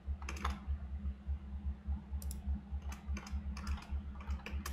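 Computer keyboard typing in quick, irregular keystrokes over a steady low hum.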